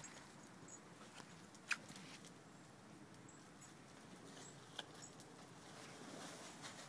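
Near silence: faint outdoor background, broken by two brief sharp clicks, the first a little under two seconds in and a weaker one near five seconds in.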